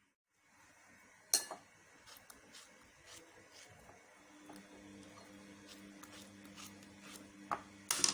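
Knife cutting yellow melon into pieces, with a few sharp clinks of the blade on the dish beneath, one about a second in and two more near the end. A faint steady hum comes in about halfway.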